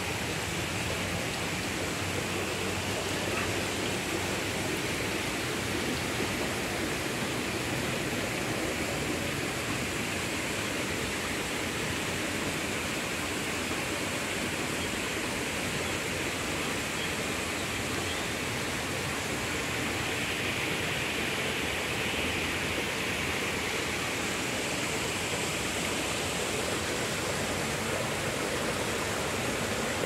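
Small waterfall cascading over rocks into a garden pond: a steady, unbroken rush of water.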